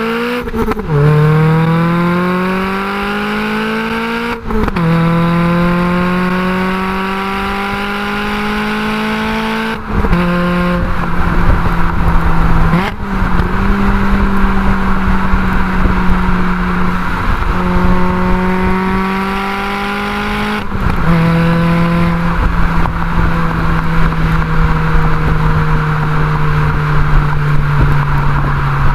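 Car engine pulling through the gears, heard from a shotgun mic mounted on the outside of the car: the note rises, breaks off briefly at several gear changes, then settles into a steady cruise whose pitch sags slightly near the end. A constant rush of wind and road noise runs underneath.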